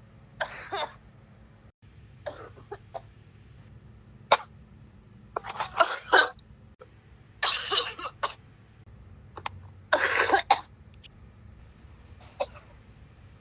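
A person coughing hard in repeated harsh fits: about seven bouts, some single coughs and some quick clusters, spaced irregularly a second or two apart.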